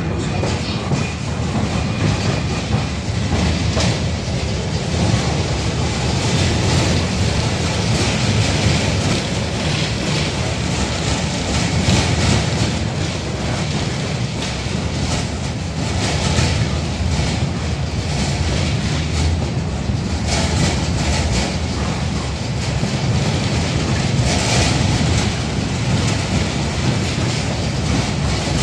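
Inside a moving 71-605A (KTM-5) tram car: the steady running noise of wheels on rails and running gear, with irregular clacks and rattles running through it.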